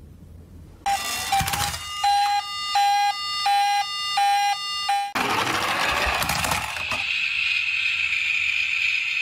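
Electronic siren sounds from battery-operated toy ambulances. From about a second in, a beeping two-tone siren repeats about three times every two seconds; about five seconds in it cuts abruptly to a harsher, noisier siren with a steady high tone.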